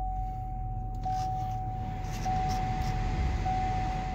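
Just-started 6.6-litre Duramax turbo-diesel V8 of a 2020 GMC Sierra 3500HD idling, heard from inside the cab. Over the idle, a single-tone dashboard warning chime repeats about every 1.2 seconds.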